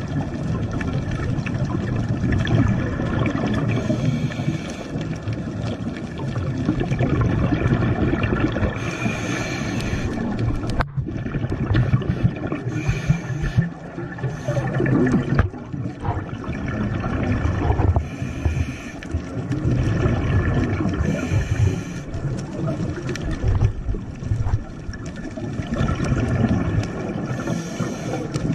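Underwater scuba breathing heard through a camera housing: a steady low rumble, with a gurgling rush of exhaled bubbles from the regulator about every four to five seconds.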